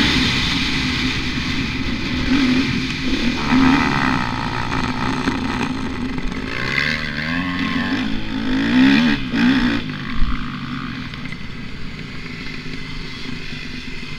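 Motocross bike engine heard from an onboard camera, revving up and down under throttle, then settling to a lower, quieter steady run after about ten seconds as the bike slows.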